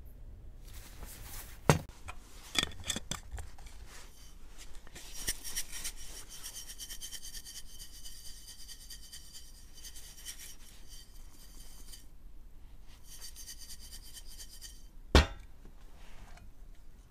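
Granular white powder hissing and rattling inside a glass jar as the jar is shaken to mix it, with clinks of glass. A few knocks come early on. A sharp knock about 15 seconds in is the jar being set down on a wooden table.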